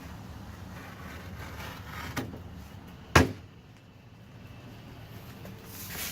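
A few knocks and handling noises, the loudest a single sharp impact about three seconds in, with a smaller knock just before it.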